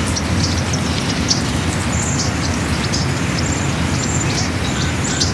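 Birds chirping over and over, short high calls, over a steady low rumble.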